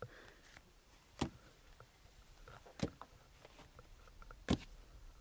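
Three sharp taps on a tabletop, about a second and a half apart, with fainter ticks between them: pieces or dice knocked down on the table during a game.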